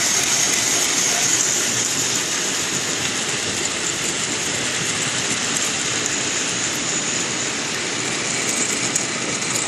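Model railway locomotives running along the track with a freight train: a steady whir of the motors and wheels on the rails.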